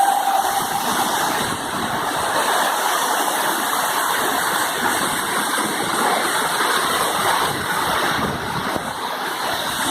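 Waterfall rushing steadily: a dense, even wash of falling and splashing water. A short held tone trails off within the first second.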